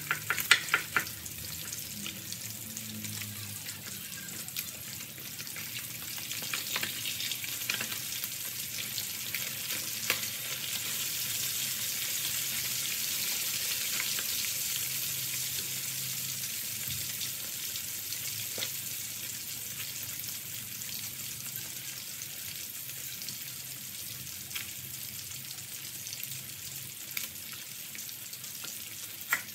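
Fish steaks deep-frying in hot oil in a wok: a steady high sizzling hiss with scattered spitting pops, a few sharp pops in the first second. The sizzle swells louder in the middle while the pieces are turned with tongs.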